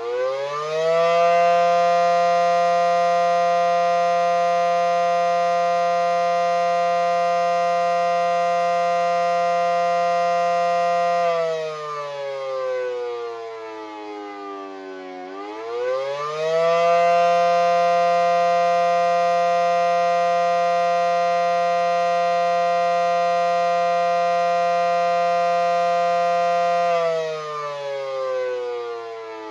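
Federal Signal SD10 outdoor warning siren sounding the attack signal: it winds up in pitch, holds a steady wail for about ten seconds, winds down, then winds up and holds again about halfway through before falling near the end.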